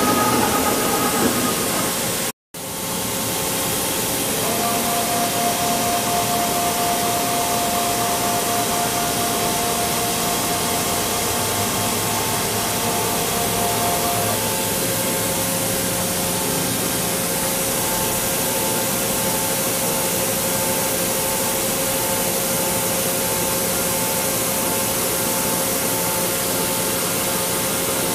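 HNK HB-130 CNC boring mill running as its 5.1-inch boring spindle feeds out of the headstock: a steady hissing machine noise with faint steady tones. The sound drops out for a moment about two seconds in, and from about halfway a faint tone pulses on and off evenly.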